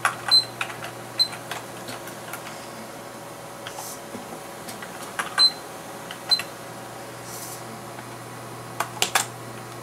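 Sharp clicks of keys pressed on a computer keyboard, in a few scattered groups with a tight run of three near the end, over the steady hum of a desktop PC's fans.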